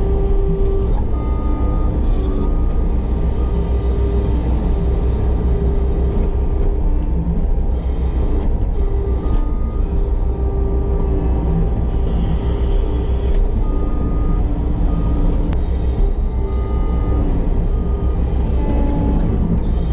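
Compact track loader with a forestry mulching head running hard: a steady, heavy diesel rumble with whining tones that come and go as the machine works.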